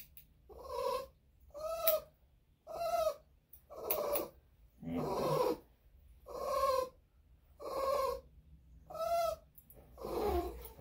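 An elderly Bichon/Shih-Tzu dog gives a drawn-out whining moan about once a second, nine times in a row. It is complaining at having its sensitive paw handled and the fur under its foot scissored.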